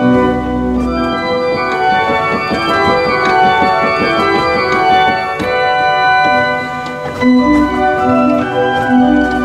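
Pipe organ playing a classical piece: held chords over a deep pedal bass, with quicker moving notes in the middle.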